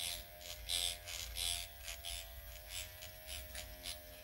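Dr. Pen electric microneedling pen running against the skin: a steady motor buzz with irregular bursts of a higher, scratchy hiss.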